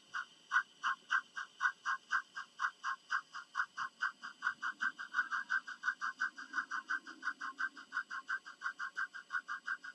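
Bachmann 4-6-0 model steam locomotive's SoundTraxx sound decoder playing steam exhaust chuffs, a steady rhythm that quickens from about three to about five chuffs a second.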